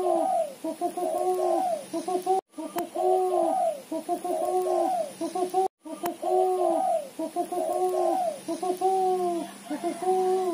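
Female spotted dove giving a rapid chattering run of short, arched coo notes, the busy 'ketrekan' call. It breaks off briefly twice.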